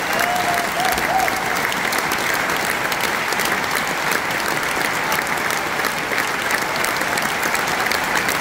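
Large arena audience applauding: thousands of people clapping in a steady, dense wash.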